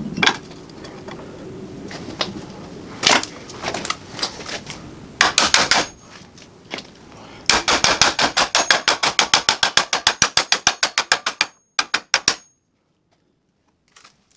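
Hammer blows on sheet steel held in a vise, bending a tab of a forge kit's steel plate over a small cast anvil. A few separate strikes come first, then a fast even run of about seven or eight blows a second for some four seconds, stopping a couple of seconds before the end.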